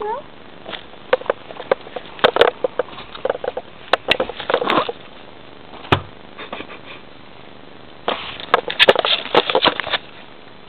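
Bengal cat sniffing at the microphone from close range: quick, sharp sniffs and snuffles with rustling, in two spells with a pause between. A short rising chirp opens it.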